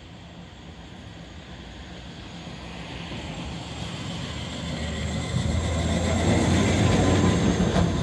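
Historic 1928 MAN tram, a motor car pulling a trailer, running along street track as it approaches and passes close by. Its rumble on the rails grows steadily louder over about six seconds and is loudest near the end.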